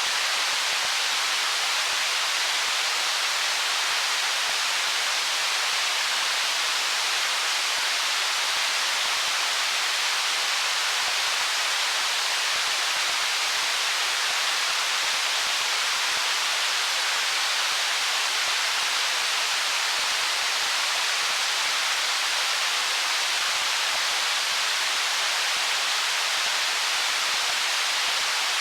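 Stream water running over stones: a steady, even rushing hiss, mostly high in pitch with little low rumble, unchanging throughout.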